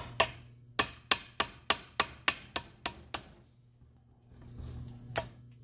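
Hammer blows on a punch, driving a hole into a steel shift-detent cap in the aluminium case of a ZF S5D 320Z five-speed gearbox: about ten sharp strikes, roughly three a second, then a pause and one last blow near the end.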